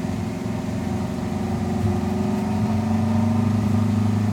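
Off-road 4x4's engine running steadily, its pitch and level rising a little about two seconds in and then holding.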